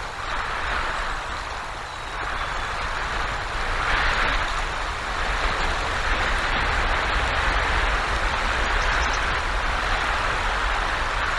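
Winter storm wind blowing on an outdoor nest-cam microphone, with heavy snow and icy rain. It makes a steady rushing hiss over a low rumble that swells in gusts, loudest from about four seconds in.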